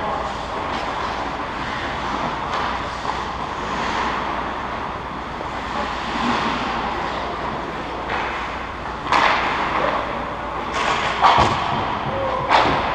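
Indoor ice hockey rink ambience: a steady, noisy arena din. Several sharp knocks, such as pucks or sticks striking boards, ice or the net, come in the last few seconds.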